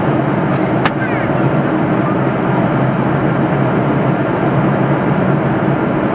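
Steady cabin noise of a Boeing 737-500 in flight, heard inside the cabin beside the wing: the drone of its CFM56 turbofan engine and the rush of airflow. A brief sharp click about a second in.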